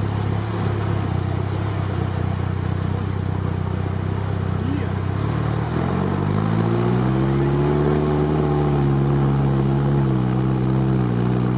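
Off-road truck engine heard from its cargo bed, running steadily at first. About halfway through it revs up and holds the higher revs as the truck drives through water.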